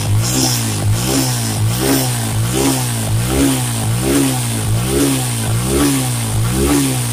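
Suzuki Gixxer's single-cylinder four-stroke engine running steadily through its exhaust silencer, its note wavering up and down about every three-quarters of a second. A smooth, even sound with no abnormal noise, like a new bike's.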